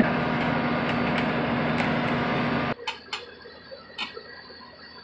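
Sany SR235 rotary drilling rig running loud with a steady hum, then cutting off abruptly about two and a half seconds in. A few sharp clicks follow.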